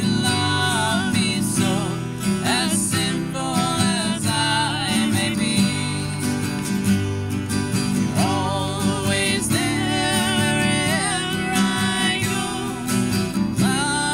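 Two acoustic guitars strummed together, with a woman singing along.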